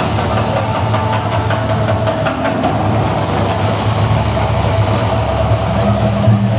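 Deep, steady rumble of the Mirage volcano show's eruption sound effects over loudspeakers, with scattered crackles in the first few seconds.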